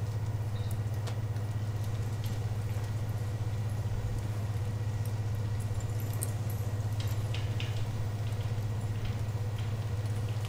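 A steady low hum with a constant level, with faint scattered clicks and ticks over it.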